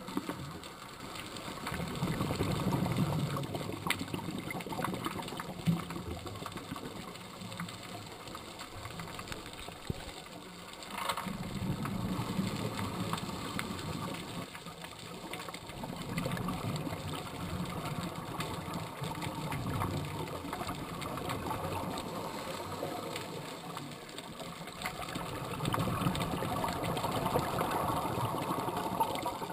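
Scuba regulator breathing underwater: exhaled bubbles rumble and rattle in swells a few seconds long, recurring every several seconds, with quieter stretches between.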